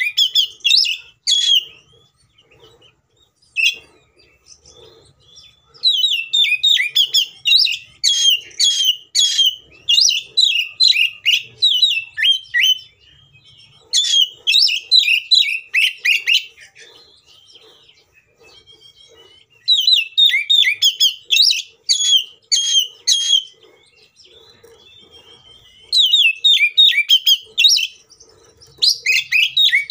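Oriental magpie-robin (kacer) in loud, vigorous fighting song: bouts of rapid, varied, high whistled phrases lasting several seconds each, broken by short pauses.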